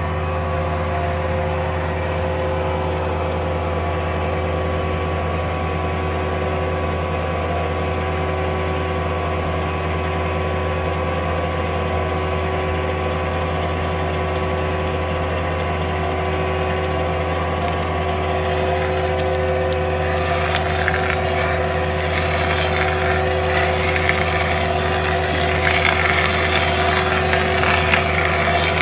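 Fecon stump grinder running steadily with a deep, even engine hum. From about two-thirds of the way in, a rougher crackling noise joins and the sound grows a little louder.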